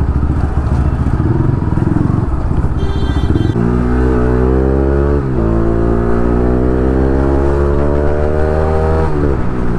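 Bajaj Pulsar RS 200's single-cylinder engine accelerating on the road, heard from the saddle with wind noise. It rumbles low at first, then the engine note climbs from about three and a half seconds in, drops at a gear change around five seconds, climbs steadily again, and falls away as the throttle closes near the end.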